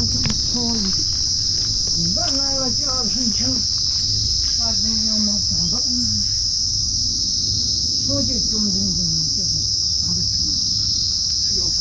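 Steady, high-pitched chorus of insects droning without a break, with low voices talking now and then underneath.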